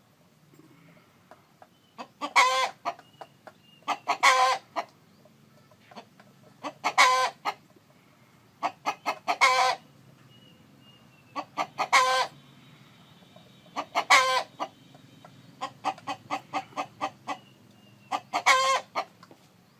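Chickens clucking: runs of quick, short clucks broken every two or three seconds by a louder, longer call.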